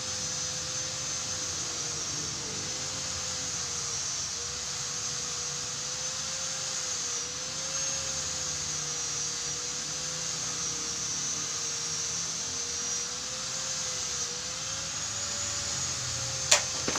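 A steady whine over a hiss, its pitch wavering slowly up and down, with a sharp click near the end.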